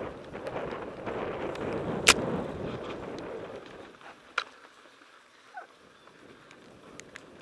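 Mountain bike riding fast on a dirt forest trail: tyre roll and rattle of the bike over the ground, with a sharp knock about two seconds in and a smaller one a couple of seconds later. The noise drops away to much quieter from about four seconds in.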